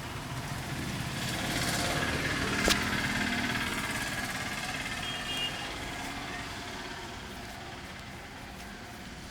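Street traffic: a motor vehicle passing, its noise swelling and then fading, with one sharp click about two and a half seconds in.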